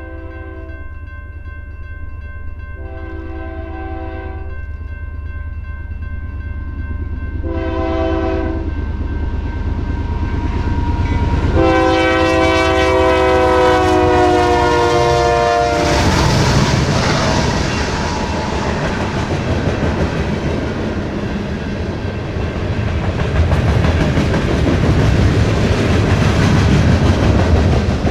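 Freight locomotive's multi-chime air horn sounding the long-long-short-long grade crossing signal as the train comes closer, the last long blast dropping in pitch as the locomotive goes by. After that, the locomotives and freight cars pass close by, a loud rumble with wheels clicking over the rail joints.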